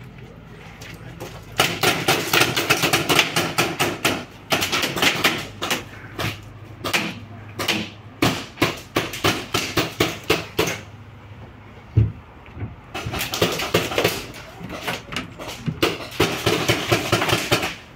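Paintball markers firing in rapid strings of sharp cracks, several shots a second, dense at first, then scattered, then dense again near the end. A single loud knock stands out about twelve seconds in.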